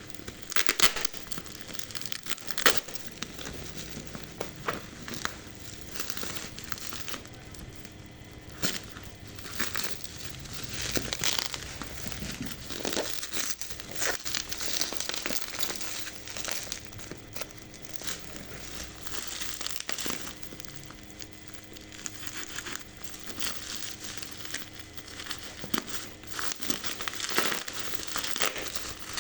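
Packaging being handled: irregular crinkling and rustling of plastic wrap or film, with many small clicks and knocks.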